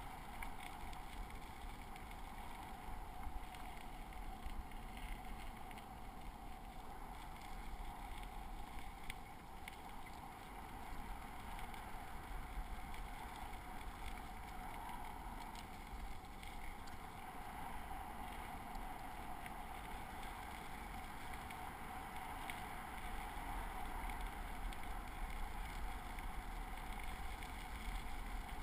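Steady rolling noise of a bicycle's tyres on a packed gravel trail, with wind rumbling on the microphone and a few faint ticks and rattles.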